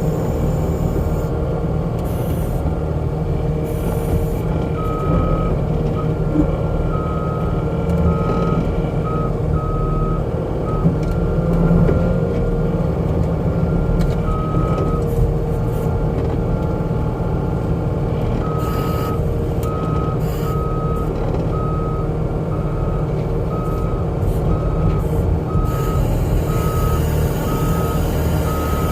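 Skid steer's diesel engine running steadily under load, with its backup alarm beeping in evenly spaced pulses during stretches of reversing, from about five seconds in and again for most of the second half.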